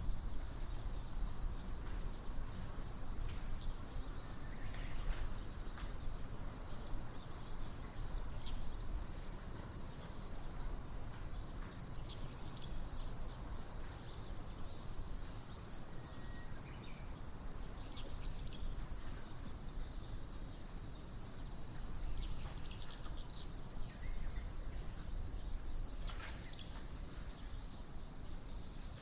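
Dense insect chorus, an unbroken high-pitched shrill drone, with a few faint short chirps now and then.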